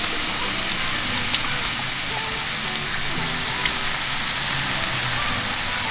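Freshly cracked eggs frying in hot garlic chili oil in a pan, a steady sizzle with a few small pops.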